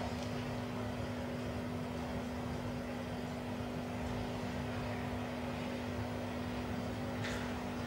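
Hydrophone recording of underwater sound: a steady hum and hiss with one constant low tone, and two faint clicks near the end.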